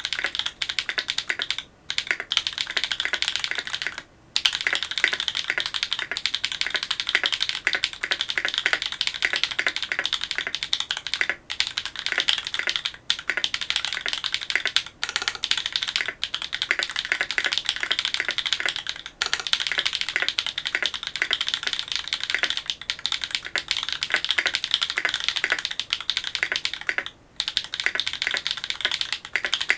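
Fast, continuous typing on a Duck Orion V3 custom mechanical keyboard with lubed Holy Panda tactile switches, an FR4 plate and GMK Oblivion keycaps: a steady stream of key clacks with brief pauses about 2 and 4 seconds in and again near the end.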